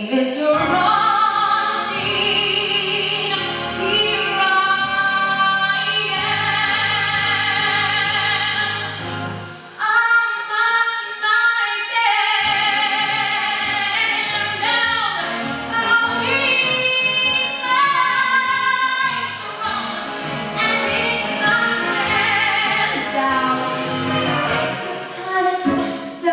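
A woman belting a Broadway show tune live over instrumental accompaniment, with vibrato on the long held notes.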